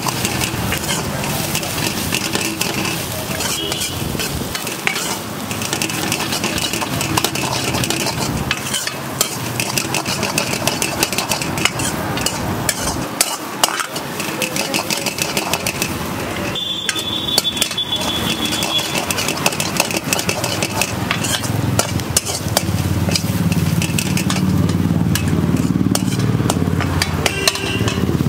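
A steel ladle scraping and clinking against a wok as shredded cabbage and vegetables sizzle and are stir-fried, with many quick clicks all through. A low rumble comes up in the last few seconds.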